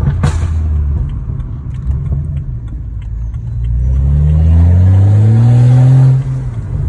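BMW E90's N55 turbocharged straight-six, running on an MHD stage 2+ tune, heard from inside the cabin: it runs steadily, then about halfway through accelerates hard with the pitch rising for a couple of seconds, and drops off abruptly near the end.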